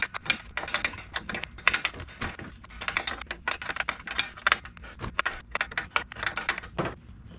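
Hand ratchet clicking in quick irregular runs as it backs out the bolt that holds the horn bracket.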